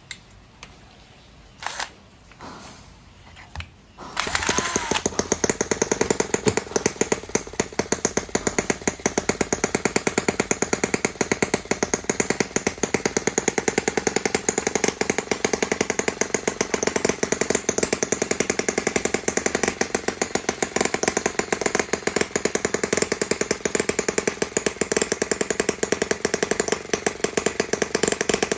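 A small model internal combustion engine, on a brass model half-track tractor, starting up about four seconds in after a few clicks, then running steadily with a rapid, even stream of firing beats.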